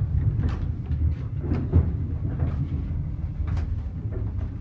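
Steady low rumble of a Belarusian passenger train running, heard from inside a sleeper compartment, with scattered soft rustles and knocks over it.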